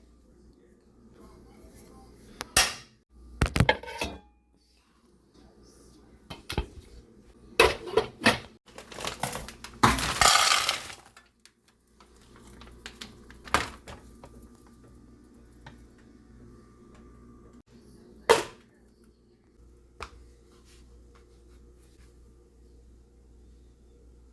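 Kitchen cookware and utensils knocking and clinking in scattered single strikes, with a longer, harsher sound lasting about a second near the middle.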